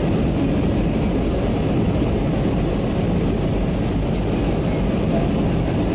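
Steady, low, even rush of an Airbus A320's jet engines and airflow, heard from inside the passenger cabin during the descent on approach.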